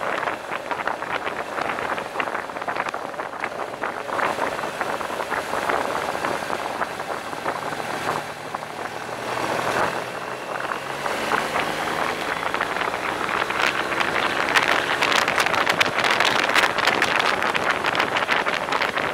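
Motorcycle riding at speed: steady wind buffeting on a helmet-mounted camera's microphone. About halfway through, the wind eases and the engine's tone comes through, slowly rising in pitch, before the wind noise builds again.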